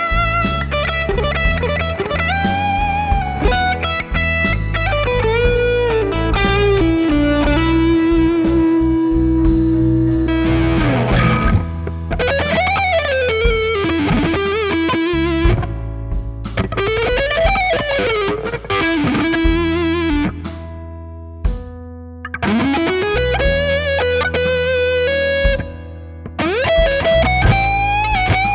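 Overdriven electric guitar playing blues lead lines with string bends, vibrato and long sustained notes over a blues backing track, through the Nux Amp Academy's high-gain amp models: the Brit 800 model, then the Dual Rect model from about nine seconds in.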